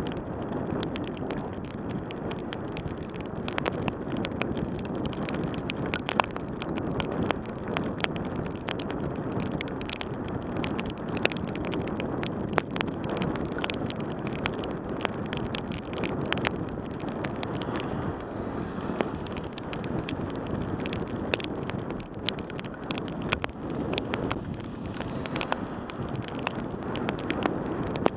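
Bicycle riding on a rain-soaked road: a steady hiss of tyres on wet pavement mixed with wind on the microphone, with frequent sharp ticks.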